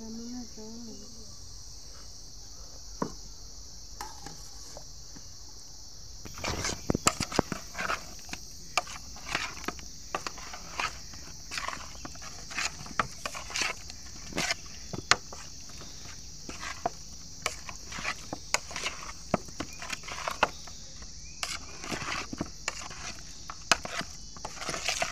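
Crickets chirring steadily throughout; from about six seconds in, irregular wet slaps and squishes as a hand mixes boiled chicken pieces into a spice-and-lemon marinade in a plastic basin.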